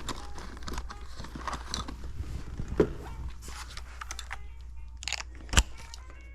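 Clicks, rattles and knocks of hand tools against the sheet-metal parts of a furnace's draft inducer motor being taken out. There is a sharp knock near three seconds in and a louder one about five and a half seconds in.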